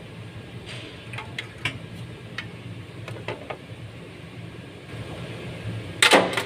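Light metallic clinks as a sheet-metal turbo heat shield and tools are handled, then a short, loud metallic rattle near the end.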